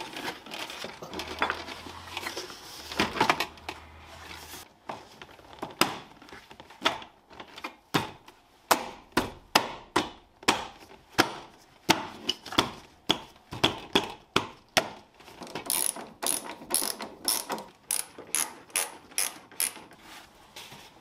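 Hand ratchet wrench clicking through repeated back-strokes as bolts are run in. It makes a steady series of sharp clicks, about one to two a second, then quicker, brighter ratcheting strokes near the end.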